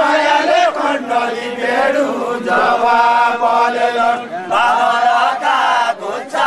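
A group of men singing a far-western Nepali folk chant together in unison, deuda style, in long drawn-out held notes.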